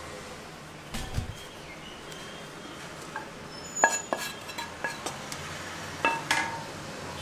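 Stainless-steel bowl and a steel cup clinking and ringing several times, in two clusters a little past the middle and near the end, as more flour is tipped into crumbly dough. A dull knock comes about a second in.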